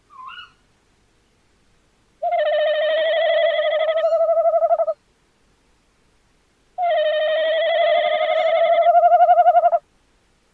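Tawny owl calling: a short rising note right at the start, then two long quavering hoots of about three seconds each, a couple of seconds apart.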